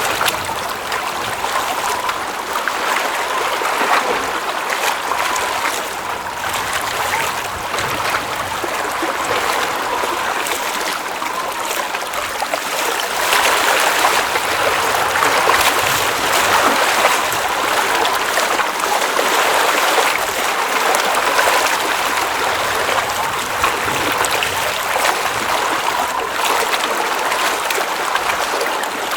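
Water in a glacial mountain lake, running and trickling as a steady rush with small splashes, getting a little louder about halfway through.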